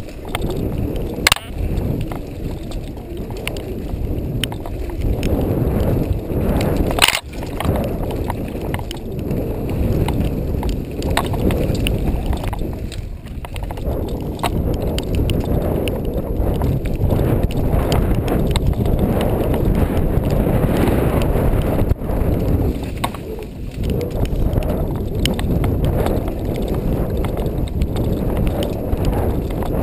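Mountain bike riding over a dirt trail, heard from a camera mounted on the bike: a continuous low rumble of tyres and wind on the microphone, with rattling from the bike. There are sharp knocks about a second in and again about seven seconds in.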